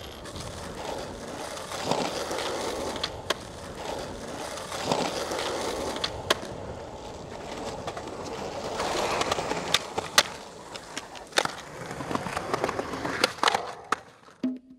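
Skateboard wheels rolling on pavement, a rumble that swells and fades several times, with sharp clacks of the board hitting the ground scattered through it.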